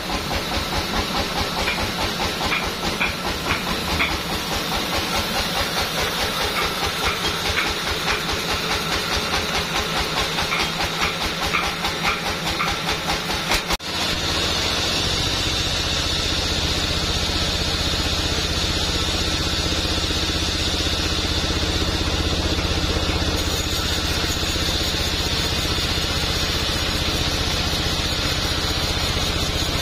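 A vertical band sawmill running and cutting a hardwood log: the machine's steady running with the hiss of the blade through the wood. The first half has a rapid, even pulsing; about halfway it changes abruptly to a steadier, fuller sound.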